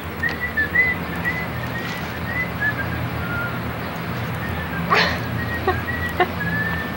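A dog whining in a string of short, high-pitched whimpers, with a sharp click about five seconds in.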